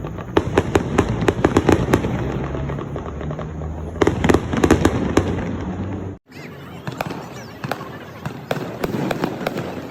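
Fireworks crackling: dense runs of rapid sharp pops, with a sudden break about six seconds in followed by more scattered pops.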